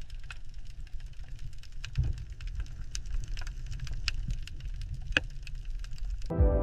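Underwater ambience sound effect: a low steady rumble with irregular sharp clicks and crackles. A sustained music chord comes in near the end.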